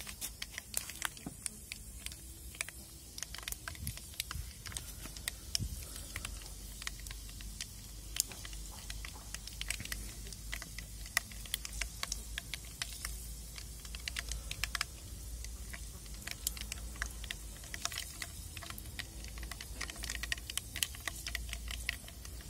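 Mustard and fenugreek seeds frying in hot oil in a pan: a steady sizzle with many small, irregular crackles.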